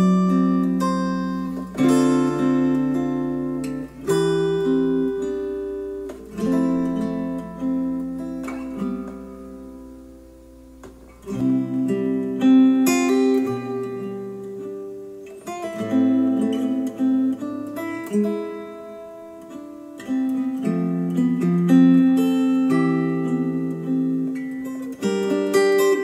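Acoustic guitar music played back through Polk Audio Reserve R200 bookshelf speakers, with a faint low hum underneath. About eleven seconds in, after a brief dip, playback switches to KEF Q350 bookshelf speakers and the hum is gone.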